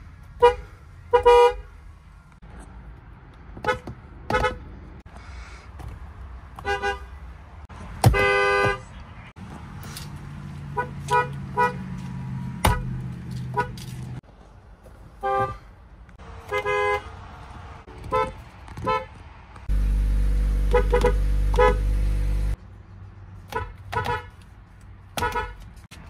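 Horns of many different cars sounded one after another, mostly short toots in twos and threes, with one longer blast about eight seconds in. A low rumble runs under some of them, loudest for a few seconds about twenty seconds in.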